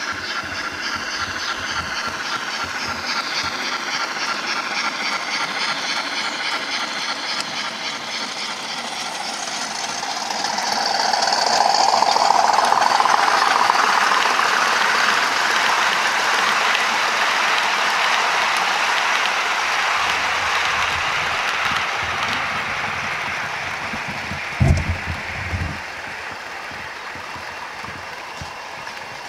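OO gauge model trains running: a steady rattle of small wheels on the rails with the whine of the locomotive motors. It swells to its loudest about twelve seconds in as a diesel hauling coaches passes close, then slowly fades. A short thump comes about twenty-five seconds in, with a smaller one just after.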